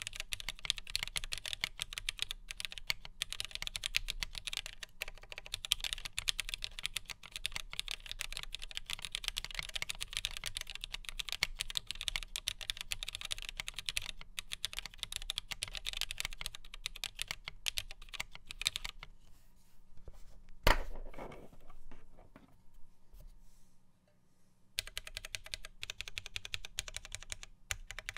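Fast continuous typing on a plateless Geonworks W1-AT mechanical keyboard with lubed vintage Cherry MX Black linear switches on a thin 1.2 mm PCB. The typing stops about two-thirds of the way in. A single loud thump follows a couple of seconds later, then a brief lull before the typing resumes near the end.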